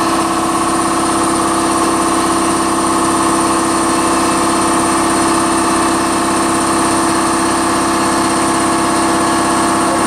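ABAC 3 HP belt-driven piston air compressor running steadily, at a level of about 74 dB(A): a loud, even mechanical hum with a fine rapid pulsing.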